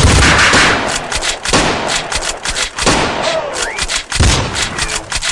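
Gunshot sound effects firing over heavy, repeated bass hits in an edited electronic soundtrack, with a brief gliding tone in the middle.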